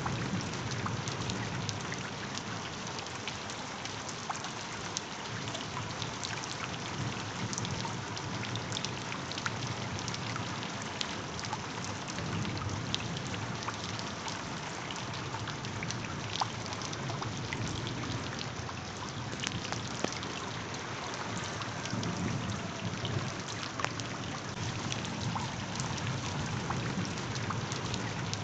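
Steady rain falling, with scattered individual drops ticking through it.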